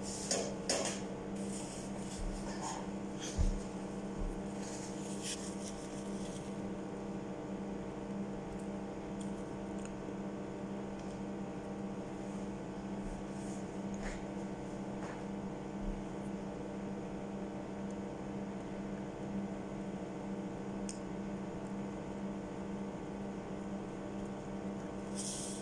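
Steady electrical hum of a kitchen appliance, with a few soft clicks and mouth sounds of someone eating fries and a burger, most of them in the first few seconds.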